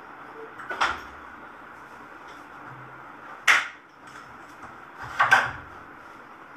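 Three sharp knocks, roughly two to three seconds apart, over a steady background hiss.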